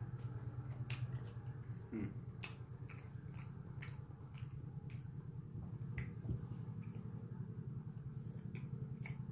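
Eating sounds: chewing and scattered wet clicks and smacks as rice and rendang are mixed and eaten by hand, over a steady low hum.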